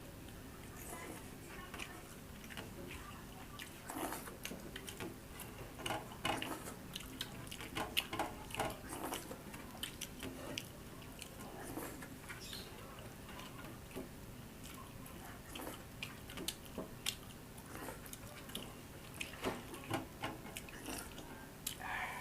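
People chewing and eating rice with mutton curry and sour yogurt: irregular wet mouth clicks, smacks and chewing, busiest in a few clusters.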